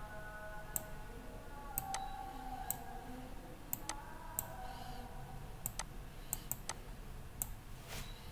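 Computer mouse clicking: a dozen or so short, faint single clicks at irregular intervals.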